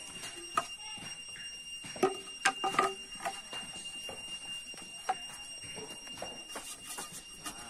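Hollow sections of cut green bamboo clacking against each other as they are picked up and gathered into an armful: a few sharp, slightly ringing knocks, bunched about two to three seconds in. A steady high-pitched whine sounds throughout.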